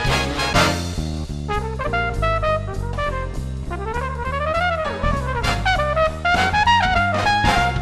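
Background music: jazz led by trumpet and trombone over stepping bass notes.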